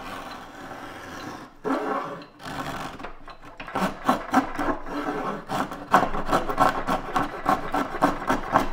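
A small hand-held angled-blade edge tool scraping along the edge of a pine board, cutting into the wood. A couple of slower strokes come first, then quick repeated rasping strokes from about four seconds in.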